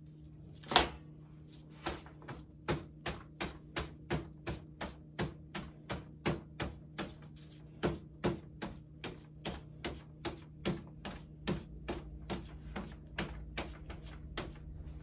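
Even, rapid knocking, about three knocks a second, with one louder knock about a second in, as a small silicone candle mold filled with wet concrete is tapped against the table to settle the mix and bring up air bubbles.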